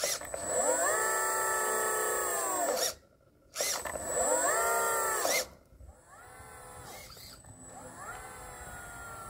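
Electric motor driving the hydraulic pump of a homemade RC excavator, twice spinning up, running steadily with a high whine for a couple of seconds and winding down. It then runs more quietly, its pitch rising again near the end.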